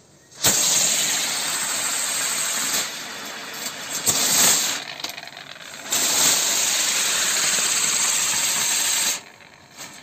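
Swastik wheel firework (Standard Fireworks) spinning and spraying sparks with a loud hiss. It fires in separate stages: a long burst from about half a second in, a short surge a little before the middle, and a second long burst that cuts off near the end.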